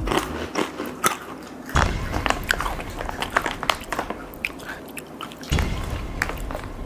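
Takis Blue Heat rolled tortilla chips being bitten and chewed: a run of sharp, irregular crunches.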